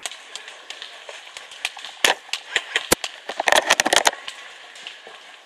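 Airsoft gunfire: sharp, uneven cracks and clicks, with a quick dense run of them about three and a half seconds in.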